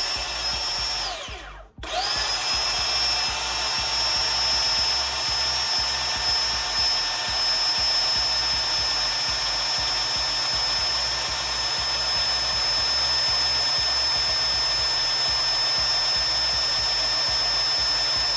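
Ryobi One+ 18V cordless belt sander running with no load, its motor whining steadily, being run free to check whether the belt tracks straight. About a second and a half in it is switched off and winds down to silence, then spins straight back up and runs steadily again.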